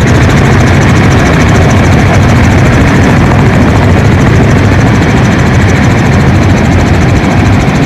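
Helicopter in flight: a loud, steady drone of engine and rotor noise with a low hum underneath.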